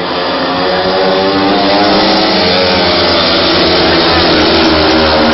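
Several speedway motorcycles, 500 cc single-cylinder methanol engines, racing at full throttle. The sound grows louder over the first two seconds as the bikes come close, then stays loud, with the engines' pitches rising and falling over one another.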